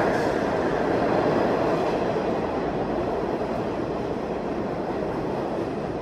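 R68A New York City subway train running, a steady rail rumble that slowly fades.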